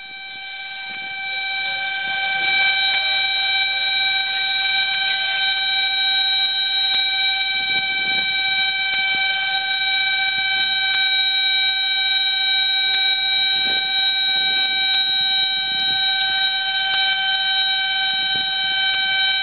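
A ship's horn sounding one long, unbroken blast, swelling over the first couple of seconds and then held steady.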